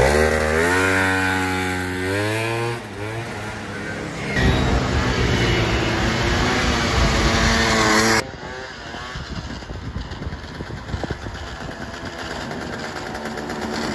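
Piaggio Zip scooter with a swapped-in 125cc Piaggio Runner engine revving and pulling away, its pitch climbing over the first three seconds. After edits it is heard again at speed, then fainter and farther off from about eight seconds in.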